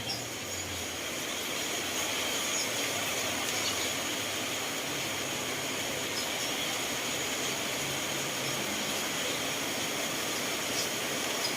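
Steady rainfall: an even hiss with faint scattered drop ticks, growing slightly louder over the first couple of seconds.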